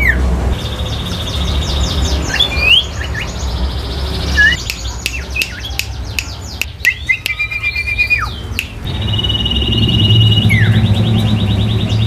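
Caged songbirds singing: long rapid high trills at the start and again from about nine seconds in, sharp falling whistled notes, and a quick run of clicks and chatter in the middle, over a low steady hum.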